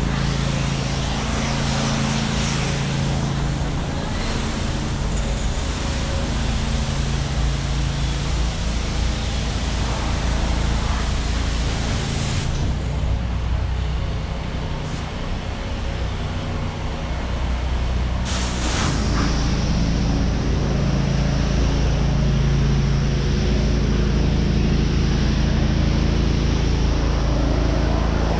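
City street traffic: cars running past on the road, with a steady low hum beneath the general traffic noise.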